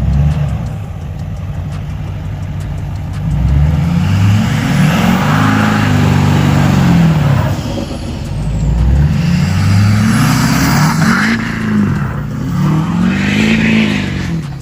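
LMM Duramax 6.6 L turbo-diesel V8 idling and revved three times. Each rev climbs and falls back over a couple of seconds.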